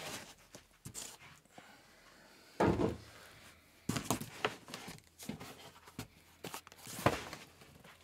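Handling noise as a heavy Fluid Audio Image 2 studio monitor in a white cover is lifted from its cardboard box and set down on a desk: one dull thump about two and a half seconds in, then scattered lighter knocks and clicks.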